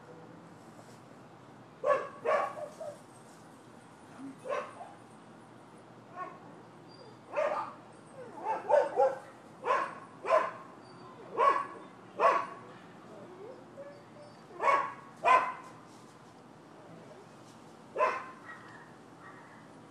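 Dogs barking: sharp barks in irregular bursts, often two in quick succession, with pauses of a second or two between.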